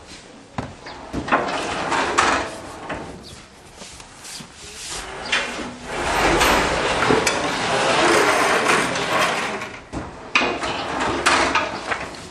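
Factory machinery and handling noise: irregular knocks and clatter, with a longer, louder stretch of scraping and rubbing in the middle.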